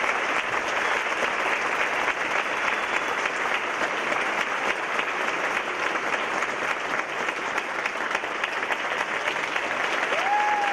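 Theatre audience applauding steadily with dense clapping.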